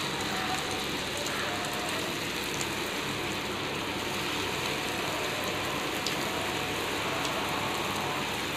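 Hot oil sizzling steadily around horse gram dough wheels deep-frying in a kadai, with faint scattered crackles.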